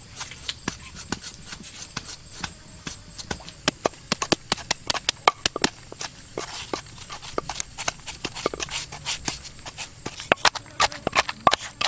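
Rapid, irregular sharp knocks or clicks of hard objects striking, several a second, growing denser and louder near the end.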